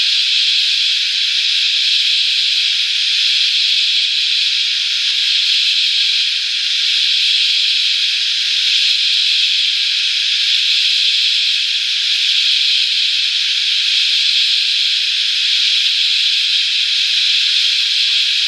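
A dense chorus of cicadas: a loud, steady, high-pitched drone that holds unbroken throughout.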